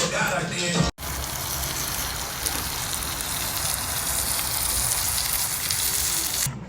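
Seasoned whole snapper sizzling on a hot grill: a steady hiss that starts about a second in, after a brief stretch of music cuts off, and stops near the end.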